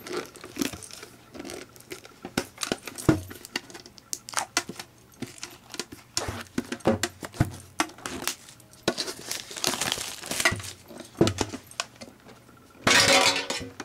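Plastic wrapping crinkling and tearing as it is pulled off a metal trading card tin, with scattered small clicks and knocks from handling the tin. A louder burst of rustling comes near the end.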